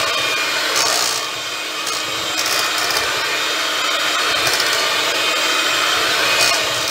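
Electric hand mixer running steadily, its beaters whipping a thick pudding and whipped-cream mixture in a metal pot, with a few brief louder rasps as the beaters catch the pot.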